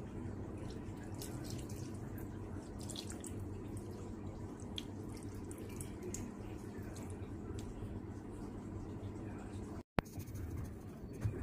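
Kitchen room noise: a steady low hum with faint scattered ticks and pops, cut to silence for a moment near the end.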